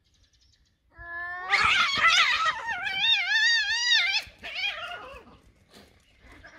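A cat yowling in a long, wavering howl, the territorial caterwaul of two cats squaring off. It starts about a second in and breaks off after about three seconds, followed by a few shorter, fainter cries.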